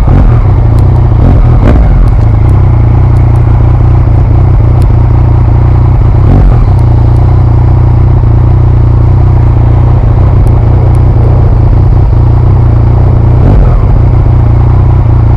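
Yamaha MT-09's three-cylinder engine with an Akrapovic exhaust running at a steady pace while riding, with a loud, steady low rumble and no marked revving.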